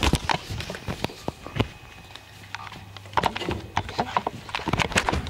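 Handling noise: a scattered series of sharp clicks and knocks as the recording device and plastic toy figures are moved about.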